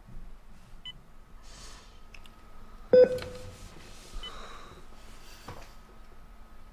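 Bedside patient monitor giving short high beeps every few seconds over a steady faint hum, with one louder, short pitched tone about three seconds in.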